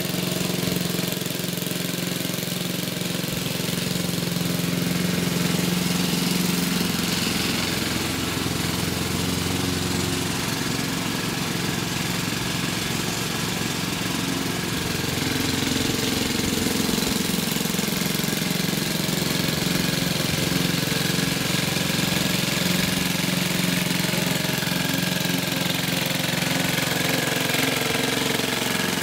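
The 3 HP Briggs & Stratton four-stroke engine of a 1960s Goodall rotary push mower running steadily at full speed while cutting grass. Its pitch dips briefly about halfway through.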